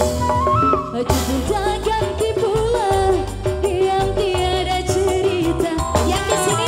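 Live dangdut band music with a woman singing into a microphone: a bending, ornamented vocal melody over electric guitar, bass and kendang hand drums.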